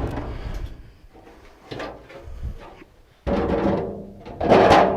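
Sheet-metal furnace flue parts being handled: a few short knocks and scrapes, then a longer rattle about three seconds in and a loud knock near the end.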